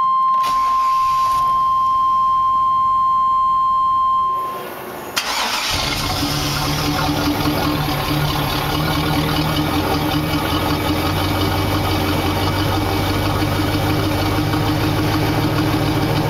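A steady, high warning buzzer tone from the Chevy's dash stops about four seconds in. About a second later the van's 5.7-litre Vortec V8 fires up and settles into a steady idle, heard at the tailpipe.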